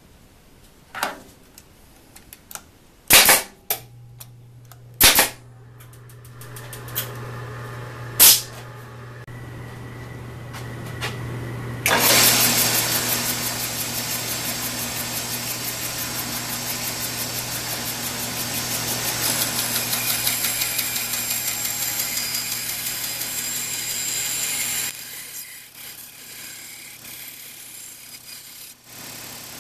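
Several sharp knocks as the plywood is handled, then a bandsaw motor starts and runs with a steady hum. About twelve seconds in, the blade cuts into half-inch plywood with a loud, rough rasp for about thirteen seconds, and then the saw runs free again.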